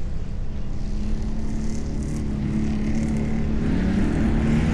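Road vehicle driving along: a steady engine drone over low road and tyre rumble, the engine tone wavering briefly near the end.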